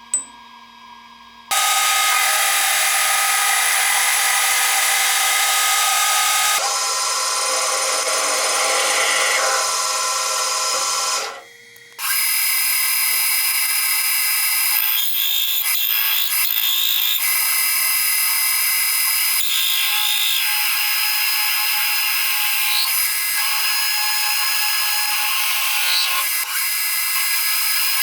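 Metalworking machine tool running while it cuts, a steady whine over a rushing noise. It starts suddenly about a second and a half in, changes character around seven seconds, drops out briefly just before twelve seconds, then runs on steadily.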